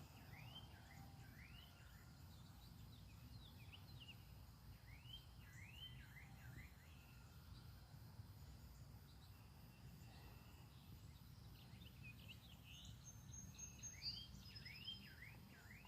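Songbirds chirping faintly: runs of short, quick up-and-down chirps, several in a row, coming near the start, around the middle and again near the end, over a low steady background rumble.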